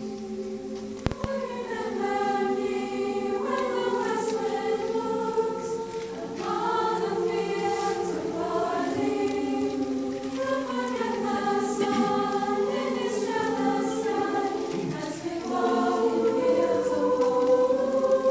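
A girls' choir singing in several parts, holding long chords that shift from note to note, louder near the end. A single sharp knock sounds about a second in.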